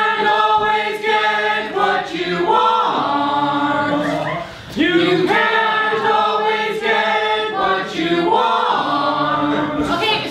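A mixed choir of men and women singing a cappella, holding notes in several voices. The singing breaks off briefly about four and a half seconds in, then comes back in.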